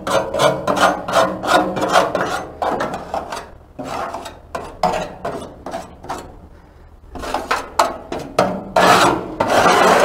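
Grill scraper scraping crusted grease and carbon off the inside wall of a stainless steel gas grill firebox, in quick repeated strokes a few a second. The strokes ease off for a second or so past the middle, then come back hard near the end.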